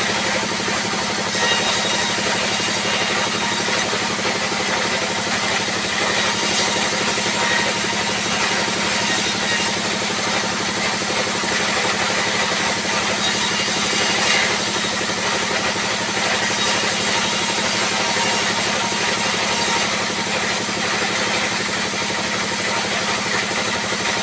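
Sawmill band saw running steadily, cutting timber fed through it by hand, with a constant low machine hum; a high hiss comes and goes in stretches of a few seconds as boards pass through the blade.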